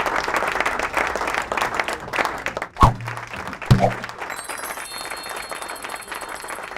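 Applause sound effect that thins out after about three seconds, followed by two short musical hits and a steady high chime-like tone near the end, rewarding a correct quiz answer.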